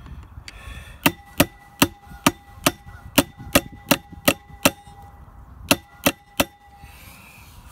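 A slim metal tool tapping against the metal housing of a Flint & Walling CJ101 jet pump: ten quick ringing taps, then a short pause and three more.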